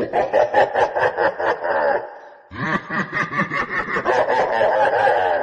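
Laughter sound effects: a burst of rapid, pulsing laughing that stops about two seconds in, then after a short gap a second burst of laughter.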